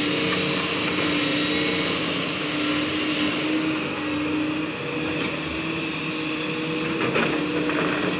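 JCB tracked excavator's diesel engine running steadily under load as the boom and bucket work, with a brief knock about seven seconds in.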